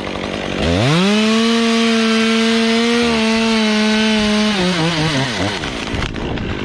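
Stihl chainsaw revving up sharply about half a second in, held at full throttle for about four seconds, then winding back down toward idle.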